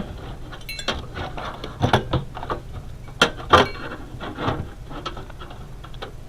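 Irregular clicks, taps and knocks of metal parts and screws being handled and fitted inside a desktop computer case, with two louder knocks at about three and a half seconds.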